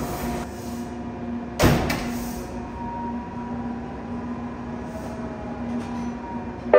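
Subway train standing at an underground platform, with a steady hum throughout. A sliding door shuts with a sharp thud about a second and a half in, and another sharp clunk comes at the very end.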